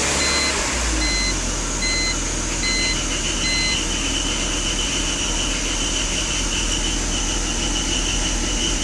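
2004 BMW 325i E46's inline-six idling just after a cold start, rough and shaky: the owner blames a bad oil separator. A warning chime beeps about six times in the first few seconds, and a steady high whine sets in a little after.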